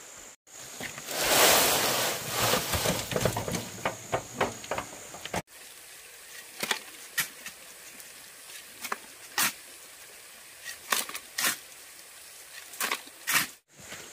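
Stones clattering and knocking: a loud, dense rattle of many hard clicks for about four seconds, then scattered single sharp knocks, about a dozen, irregularly spaced.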